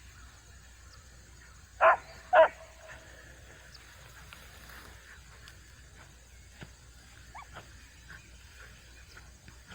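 A rabbit beagle barking twice, loud and short, about half a second apart, around two seconds in.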